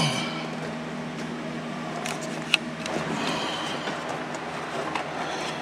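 Scattered clicks, taps and scraping from a gloved hand working behind a car's dashboard, with one sharp click about two and a half seconds in, over a steady low hum.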